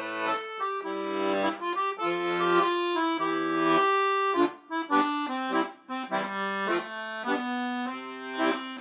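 Piano accordion playing an instrumental break: a right-hand melody of held reedy notes over a bass-and-chord accompaniment, with a couple of brief pauses about halfway through.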